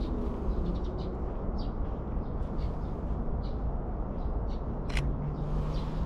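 Outdoor park ambience: a steady low rumble with short bird chirps scattered throughout. A single sharp camera-shutter click comes about five seconds in, and a low steady hum sets in at about the same time.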